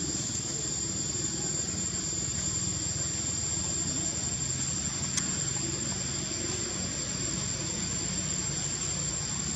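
Steady background rumble with a constant high-pitched whine over it, and a faint click about five seconds in.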